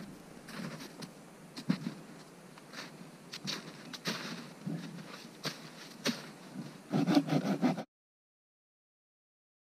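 Boots crunching in snow and dry wood cracking as a dead branch is broken off a fallen tree: scattered sharp snaps, then a louder run of cracks about seven seconds in, after which the sound cuts off suddenly.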